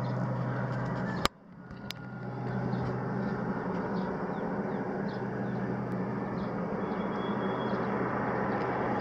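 Steady drone of a small twin-engine turboprop on approach to land, heard at a distance. About a second in, a sharp click and a brief dropout, after which the drone swells back and holds steady, with faint high chirps over the top.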